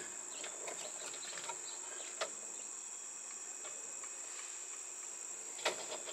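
Steady high-pitched insect chorus, with two short clicks of wires being handled in a metal electrical box, one about two seconds in and one near the end.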